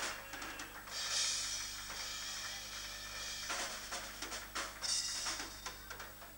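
Live band music led by a drum kit, with drum hits and cymbal crashes about a second in and again near five seconds in, recorded thinly through a faulty camera microphone.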